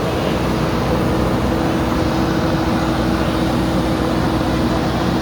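JCB backhoe loader's diesel engine running steadily under work, with a steady tone above the rumble.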